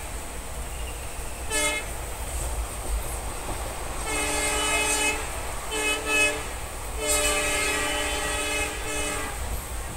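Train horn sounding four blasts: a short one about one and a half seconds in, a one-second blast at about four seconds, another short one near six seconds, and a longer blast of about two seconds soon after. The steady low rumble of the moving train runs underneath.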